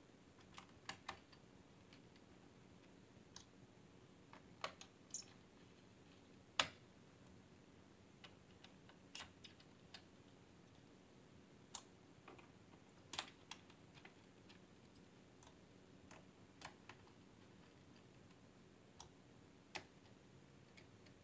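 Sparse, irregular small clicks and taps of screws and fingers working on a laptop's plastic underside, the loudest about six and a half seconds in, over a faint steady hum.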